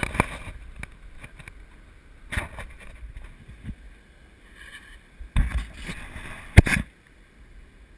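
Water splashing and wind rumbling on the microphone in the surf, with scattered knocks and one loud, sharp thump near the end.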